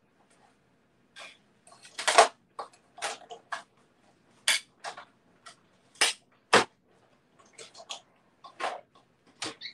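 Stampin' Up Cut & Emboss machine, a hand-cranked die-cutting machine, in use: irregular clicks and clacks as the plates and die are handled and cranked through, the loudest around two seconds in and at six to seven seconds.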